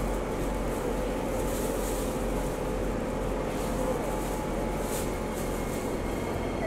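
Steady hum and hiss of a metro train car's air conditioning and ventilation while the train stands at a station with its doors open.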